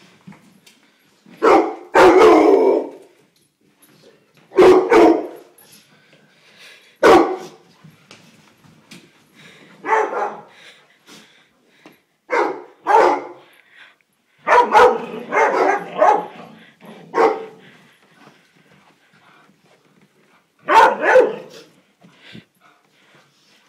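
Dog barking at a broom pushed along the floor, in loud, irregular bursts a few seconds apart, with a quicker run of barks about two-thirds of the way through.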